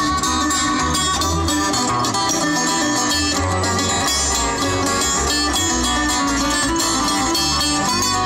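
Acoustic string band playing bluegrass-style folk music: fiddle, five-string banjo, acoustic guitar and acoustic bass guitar together, with the bass moving note by note underneath.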